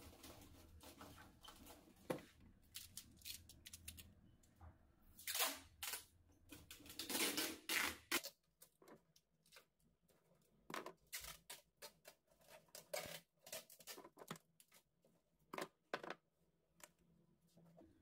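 Handling noise at a top-loading washing machine's lid and control panel: scattered clicks, scrapes and rustles from hands and a pair of scissors, busiest about halfway through. A low hum under the first half stops about halfway.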